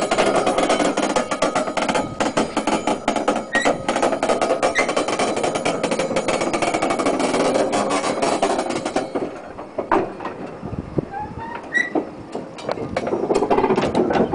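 Railway flat wagons rolling slowly over old jointed track, their wheels and couplings clattering and knocking steadily. It eases off about nine seconds in and picks up again near the end.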